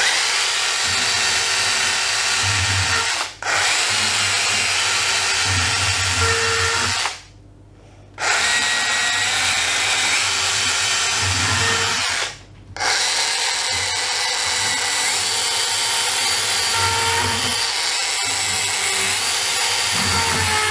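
Bosch EasyCut 12 cordless 12-volt NanoBlade saw running as it cuts through a tomato: a steady machine whine in four spells, stopping briefly about three seconds in, for about a second around seven to eight seconds in, and again briefly near twelve and a half seconds, before shutting off near the end.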